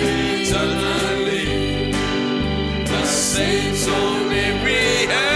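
Gospel worship music: voices singing over a band, with steady bass notes and regular drum and cymbal hits.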